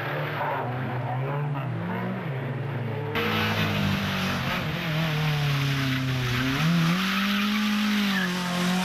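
Rally car engine revving, its pitch rising and falling as the driver lifts and accelerates. About three seconds in the sound switches abruptly to another car under power, with a steady hiss of tyre noise under the engine.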